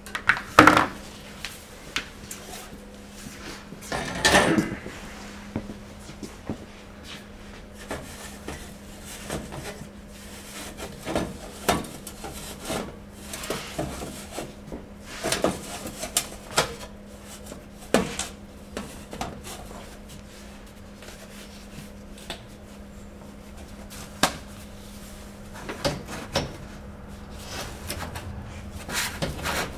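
Scattered knocks, clicks and rustles of hands at work as the sheet-metal boiler housing and fibreglass insulation are fitted around the boiler of an RV absorption-fridge cooling unit, the loudest about a second and about four seconds in. A faint steady hum runs underneath.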